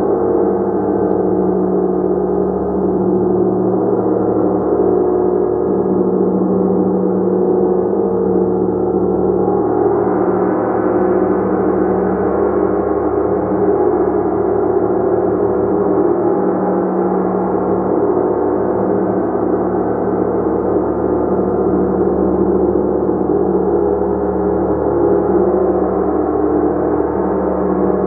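Gong played continuously, a dense, steady wash of many overlapping sustained tones that grows brighter about ten seconds in.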